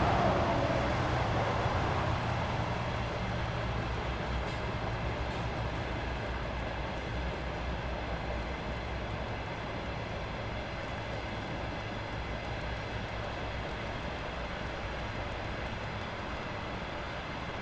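Low engine rumble of a passing vehicle, loudest at first and slowly fading away as it moves off.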